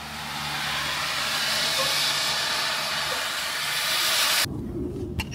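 A steady hiss of rushing noise that cuts off abruptly about four and a half seconds in, leaving a quieter background with a few faint clicks.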